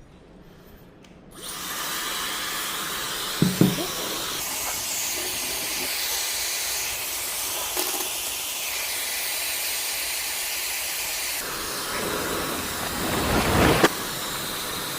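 Dyson hair dryer switched on about a second and a half in and blowing steadily, a loud even rush of air that shifts slightly in level a few times. A couple of handling knocks are heard around 3.5 seconds and again near the end. The dryer is running after its faulty power cable was repaired.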